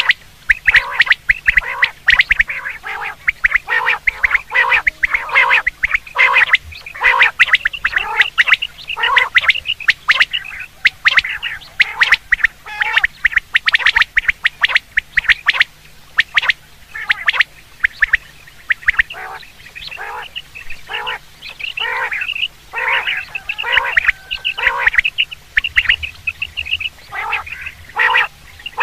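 Common quail calling over and over in quick, short, sharp notes, in dense runs with only brief pauses.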